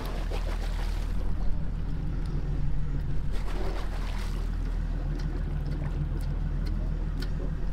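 Fishing boat's engine running with a steady low hum, with scattered light clicks and knocks on board.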